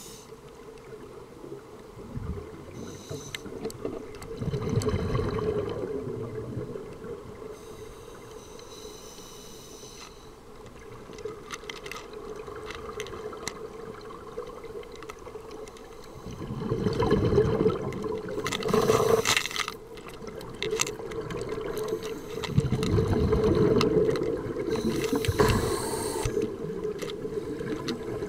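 Scuba divers breathing through their regulators underwater: a hiss at each inhalation and rumbling surges of exhaled bubbles every several seconds, over a steady low hum.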